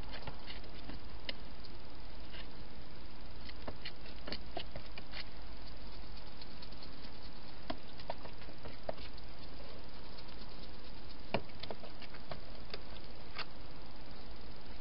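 Hedgehog eating from a bowl inside a plastic feeding box: irregular small crunching clicks from the chewing and the food and bowl, over a steady hiss. The loudest click comes about eleven seconds in.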